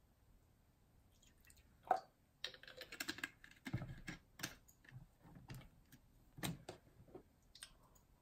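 Faint, scattered clicks and knocks from handling a plastic drink bottle: its screw cap being turned back on and the bottle set down on a wooden table among others, with a couple of duller knocks.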